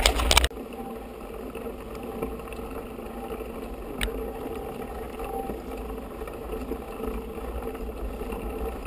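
Mountain bike rolling over a gravel track, a loud rumble of tyres and wind on the camera, cut off abruptly about half a second in. A quiet, steady outdoor background follows, with a single faint click about four seconds in.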